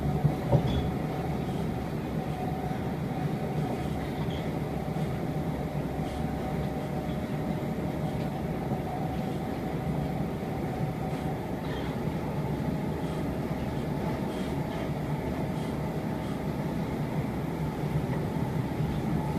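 Siemens C651 electric metro train running at speed, heard inside the carriage: a steady rumble of wheels on rail with a faint steady whine, and a couple of knocks about half a second in.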